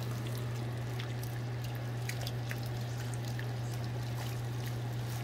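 Shrimp in garlic-butter sauce simmering in a pan, a soft even bubbling hiss with faint scattered ticks, over a steady low hum.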